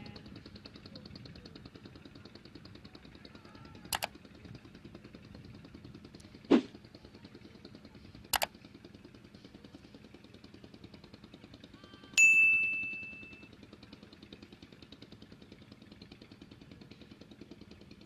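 Editing sound effects over a faint steady outdoor background: a couple of sharp clicks and a low thump, then, about twelve seconds in, a loud bell-like ding that rings out and fades over about a second.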